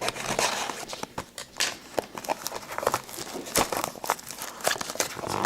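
Sealed hockey card box being unwrapped: plastic shrink-wrap torn and crinkled, with scattered clicks and rustles of packaging being handled.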